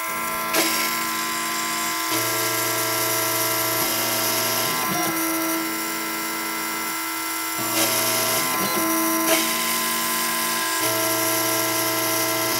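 Gravograph M20 engraving machine rotary-engraving a stainless steel tag: the spindle and cutter run with a steady high whine, while a lower motor hum stops, starts and changes pitch every second or two as the machine moves the cutter through the lettering. A few brief clicks and ticks come through now and then.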